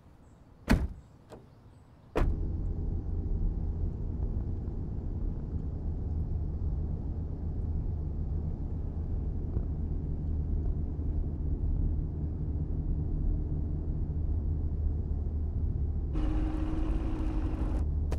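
A car door shuts with a sharp knock about a second in, with a couple of smaller clicks after it. Then comes the steady low rumble of the car driving, heard from inside the cabin. Near the end a hiss with a steady hum joins for about two seconds.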